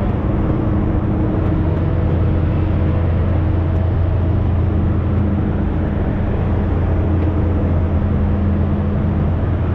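Steady low machinery drone with a few constant hum tones over it, unchanging throughout.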